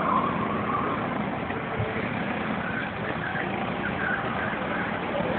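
Several go-kart engines running around the track, heard together as a steady mixed engine drone.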